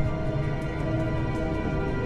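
Tense, ominous film score: a sustained held chord of several steady tones over a low rumble.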